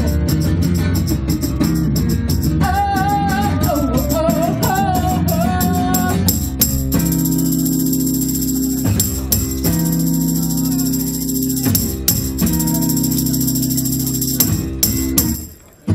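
Live guitar-and-vocal rock song: a sung melody over guitar for the first several seconds, then a guitar passage of held, ringing chords punctuated by sharp strummed accents. The music breaks off briefly just before the end.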